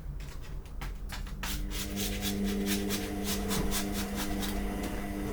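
Acetone-softened adhesive being scraped off a steel print bed in quick back-and-forth strokes, about five a second. A steady low hum starts about two seconds in.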